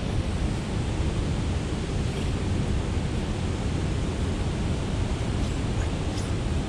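Steady rushing noise of fast water pouring below a dam spillway, even throughout with no distinct events.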